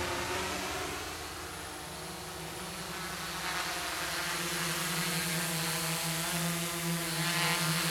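Quadcopter with four DYS D4215 650kv pancake brushless motors turning 10-inch propellers: a steady buzzing hum from the motors and props that grows louder over the last few seconds as it flies in close.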